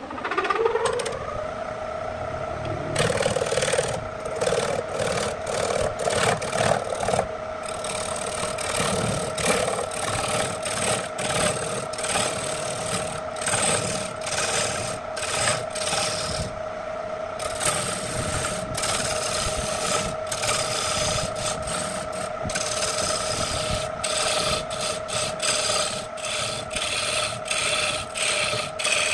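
Wood lathe's electric motor starting up, its whine rising and settling into a steady hum. About three seconds in, a turning tool starts cutting the spinning wood blank, giving repeated bursts of scraping and rasping over the motor hum.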